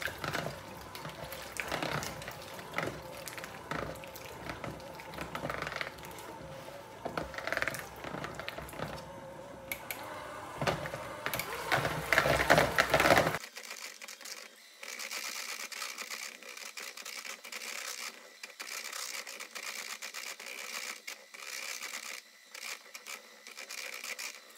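Handheld electric mixer running, its beaters whipping a thick cream cheese, sweetened condensed milk and lemon juice pie filling in a bowl, with a steady motor whine and frequent small knocks of the beaters. About halfway through, the sound abruptly turns thinner, its low end gone.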